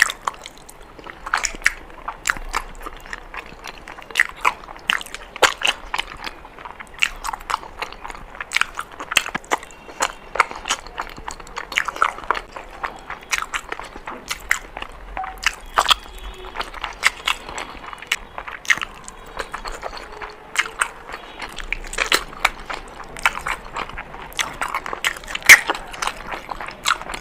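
A person biting and chewing Indian sweets: many short, sharp clicks and crunches at an uneven pace.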